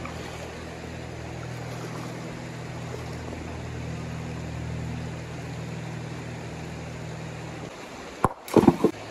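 Flowing river water under a steady low hum that stops near the end; then a large rock slammed down onto a river boulder to stun the fish beneath it: a sharp crack followed at once by a louder burst.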